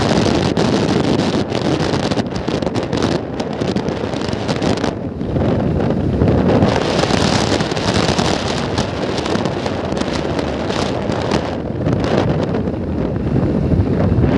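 Wind buffeting the microphone of a phone filming from a moving vehicle: a loud, fluttering rush.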